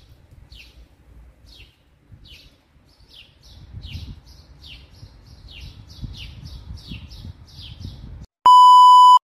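A run of short, high, falling chirps that come faster and faster over a faint low rumble, followed near the end by a loud, steady electronic beep lasting under a second.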